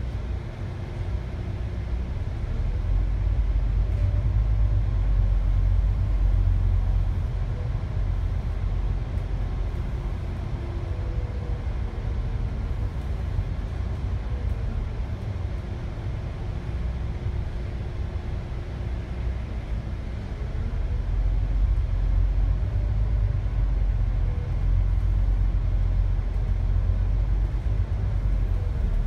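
City bus engine and drivetrain running while driving, heard from inside the upper deck: a steady low rumble that grows louder twice as the bus accelerates, with a faint whine rising and falling in pitch.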